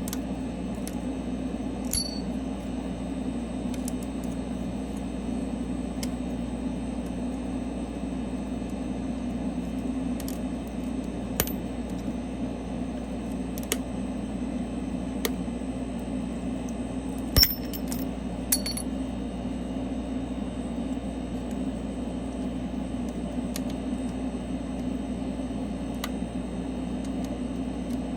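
Steady machine hum from the mini LCD-separating freezer running, with a few sharp clicks and clinks of small hard objects, the loudest about 17 seconds in.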